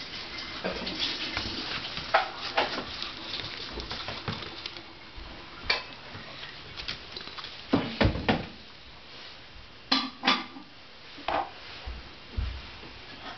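A dish clinking and knocking in scattered, irregular clicks, with louder knocks about eight and ten seconds in.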